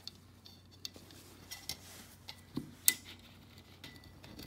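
Scattered small metal clicks and clinks of a steel spring hook and pliers knocking against the steel channel of a window balance as the balance spring is hooked back on; the loudest click comes just before three seconds in.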